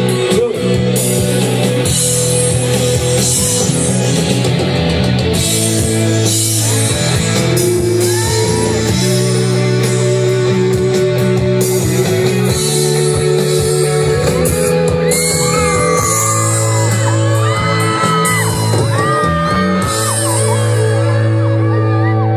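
Live rock band playing a song, with sung vocals over sustained guitar and bass chords and crowd yelling.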